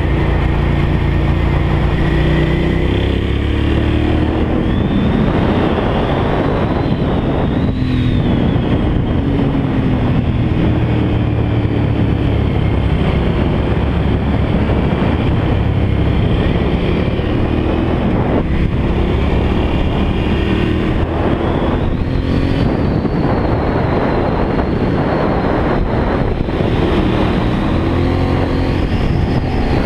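Motorcycle engine heard from on board the bike, its revs rising and falling over and over as it is ridden hard through a series of curves, under a steady rush of wind and road noise.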